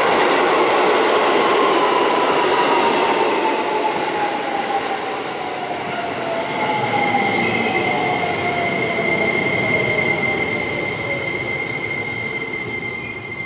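Keisei 3000 series electric train pulling into the station and braking: the whine of its Toyo IGBT-VVVF inverter and traction motors falls steadily in pitch as it slows, over wheel and rail noise. About halfway through a steady high-pitched whine comes in, and the sound eases off near the end as the train comes to a stop.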